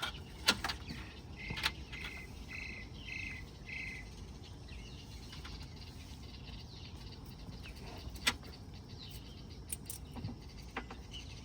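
Scattered clicks and knocks of strap and buckle hardware being handled, with a run of five short, evenly spaced high chirps about two seconds in.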